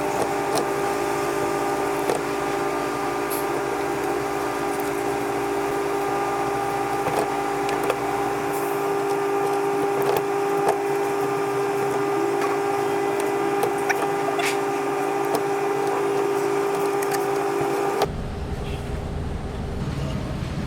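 A handheld power tool's motor running at a steady pitch, with scattered light clicks of the tool working against metal, cleaning parts while the CV axle is out; it stops abruptly near the end.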